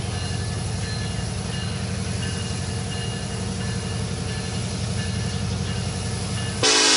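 Diesel engines of new EMD SD70ACe locomotives running with a steady, pulsing low drone as the train approaches. Near the end the locomotive horn starts a loud blast.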